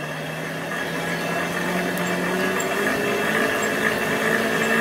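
Hand-cranked forge blower whirring steadily, its hum rising slightly in pitch partway through, forcing air into a coal fire to bring it up to heat.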